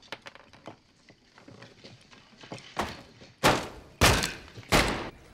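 Blows landing in a beating: a few light knocks, then three heavy thumps about half a second apart.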